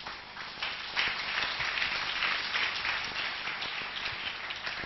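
Congregation applauding, many hands clapping at once; the clapping swells about a second in and then carries on steadily.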